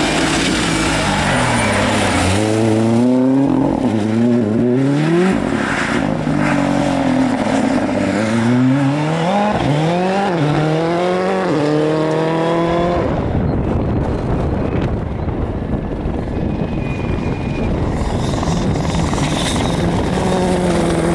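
Rally car engine revving hard as the car passes, its pitch climbing and dropping again and again through gear changes and lifts. After that comes a steady rushing noise with no engine pitch.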